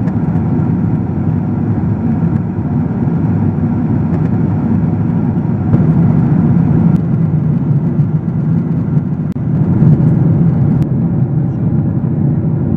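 Steady low rumble of an Airbus A330's engines and airflow heard inside the passenger cabin in flight, with a few faint clicks.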